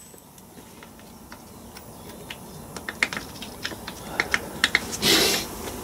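Light metallic clicking of loose steel sockets being handled and a socket tried onto a nut on a transfer box casing, a few clicks at first and then quicker ones, about four or five a second. A short, louder scraping rustle follows about five seconds in.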